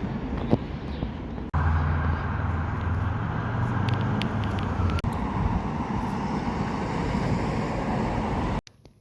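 Outdoor street ambience with traffic and vehicle engine noise, cut abruptly three times, the middle stretch carrying a low engine hum; near the end it drops sharply to a much quieter background.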